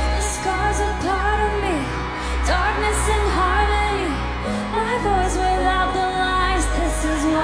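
Pop music: a melodic lead line that could be singing or a synth, over a steady bass.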